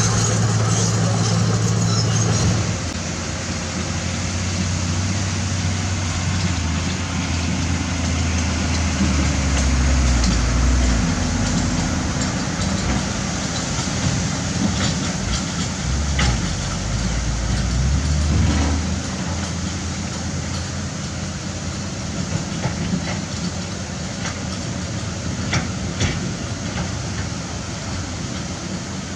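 Heavy diesel construction machinery working: a low engine note that rises and falls in pitch several times, with a few sharp knocks in the second half.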